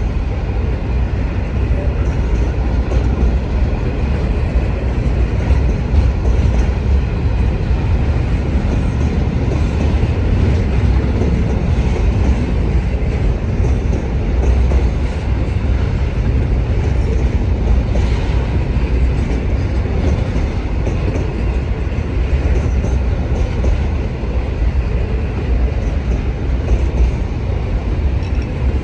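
Freight train rolling past at steady speed: a continuous heavy rumble of wheels on rail with some clickety-clack.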